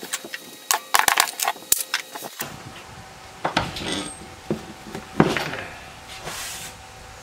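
Unpacking noise: crackling and clattering of plastic wrap, cardboard and a wooden crate being handled around a steel belt grinder, with a run of quick crackles in the first couple of seconds, then scattered knocks and rustles and one sharp knock about five seconds in.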